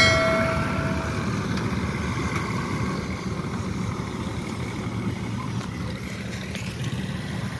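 A horn sounds briefly right at the start, then a steady low engine rumble slowly fades away.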